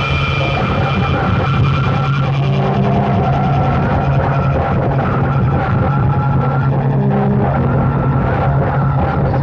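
Noise music transferred from cassette: a loud, dense wall of harsh noise over a steady low hum, with held tones that drop in and out.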